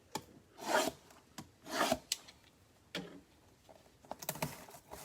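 Trading cards and their pack packaging being handled: three short rubbing swishes with a few light clicks in between.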